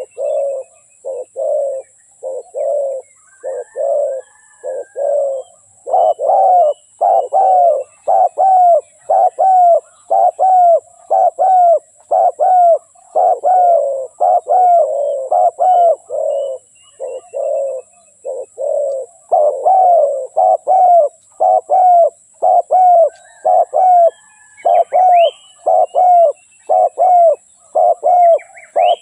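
Spotted dove cooing over and over: a continuous run of short, low coos, about three every two seconds, with only brief pauses between phrases.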